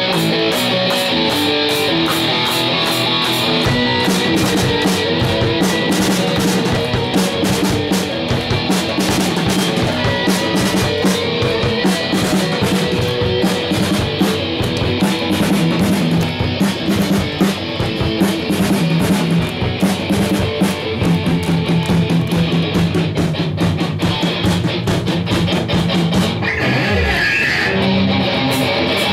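Live heavy-metal band playing: electric guitars over a drum kit with rapid, steady drum and cymbal hits, and a falling guitar slide near the end.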